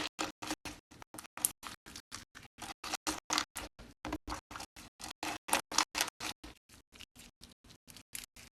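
Slime being squished and worked by hand, giving a fast, even run of small crackling clicks, about five a second.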